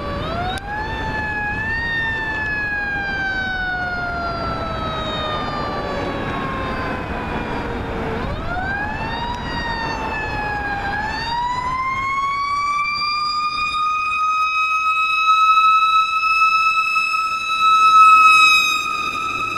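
Fire engine's Federal Q mechanical siren winding up and then coasting down slowly in pitch, winding up again twice, the second time held at a steady high pitch. It is loudest as the engine passes near the end, and its pitch begins to fall just before the end.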